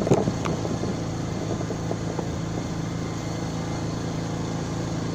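Steady low mechanical hum of an engine or motor running, with a few light clicks in the first half second.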